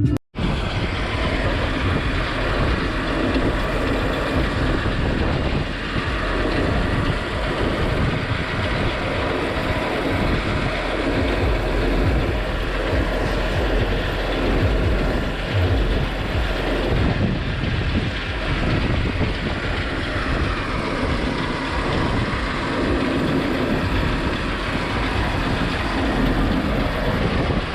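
Tractor engine running with a steady, even rumble.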